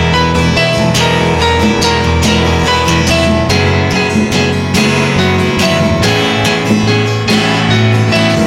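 Instrumental passage of a song: strummed guitar over sustained band notes, with no singing.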